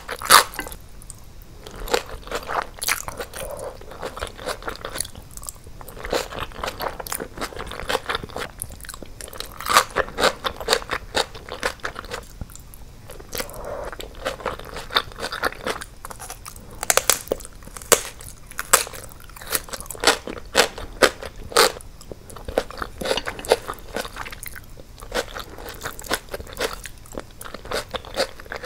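Close-miked chewing of a stir-fried dish and kimchi. Clusters of wet crunches and mouth clicks come bite after bite, with short pauses between them.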